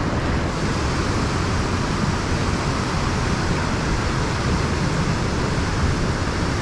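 Steady rushing of a flowing river, an even noise with no breaks.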